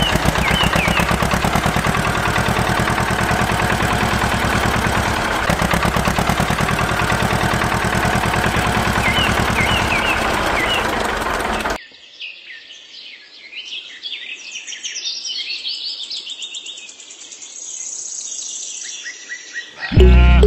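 A small engine running with a fast, steady rattle for about twelve seconds, then cutting off suddenly. Birds chirp over it and carry on alone afterwards.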